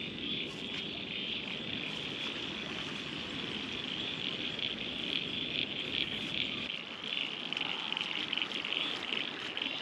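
Steady high-pitched chorus of calling insects, a dense continuous trill.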